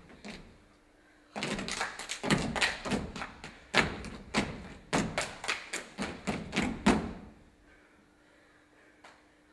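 A group of dancers stamping out a quick rhythm with their feet on a stage floor, about three sharp stamps a second, starting a little over a second in and stopping about seven seconds in. A faint steady hum remains after.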